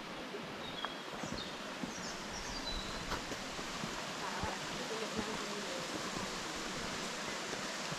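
Steady outdoor rush of running water, with a few faint high bird chirps about one to three seconds in.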